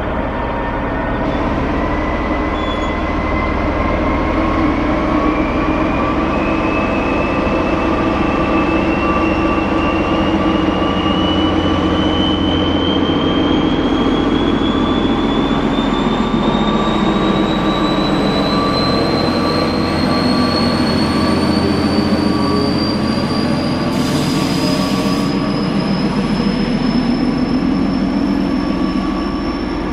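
A ČD Class 754 'Goggle' diesel locomotive, with its turbocharged six-cylinder ČKD engine, working hard as it pulls a passenger train away from a station. Its engine note is accompanied by a high whine that rises steadily in pitch as the train gathers speed, and a brief hiss cuts in about 24 seconds in.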